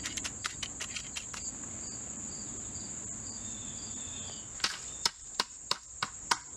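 Steady high-pitched chirring of crickets or other insects. Over it come a quick run of light clicks in the first second or so, and several sharper clicks near the end, from a magnet and plastic sieve pan of garnet gravel being handled.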